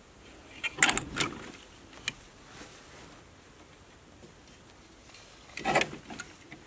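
Metal clothes hangers sliding and clinking along a wardrobe rail as hanging garments are pushed aside, in two short clattering bursts, one about a second in and one near the end.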